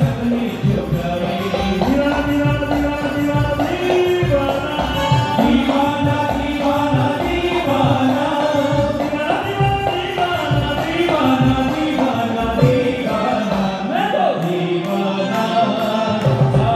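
Live Indian devotional bhajan: a male singer's amplified voice over keyboard melody, with tabla and dholak keeping a steady rhythm. The deep drum strokes drop out for a couple of seconds near the end.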